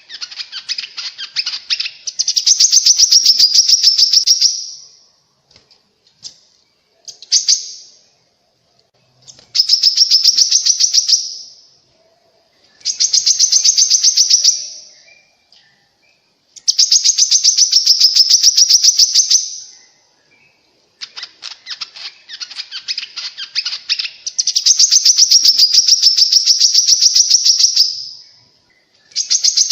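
Korlap bird song: phrases of rapid, high-pitched trilled notes, each lasting a few seconds with short pauses between. It is played as a lure call to draw korlap birds into answering.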